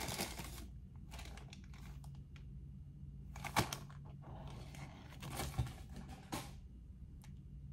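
Paper pastry bag crinkling and rustling in several short bursts as it is handled, the sharpest a little past three and a half seconds in.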